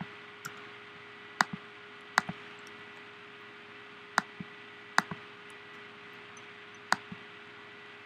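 Computer clicks while deleting regions, sounding as about six sharp clicks spaced a second or so apart. Most come as a quick press-and-release pair, over a faint steady hum and hiss.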